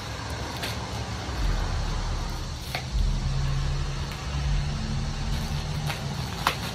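A passing car playing loud bass-heavy music, heard as a low rumble with held bass notes that change pitch a few times. Three sharp crackles of plastic wrapping being handled cut through it.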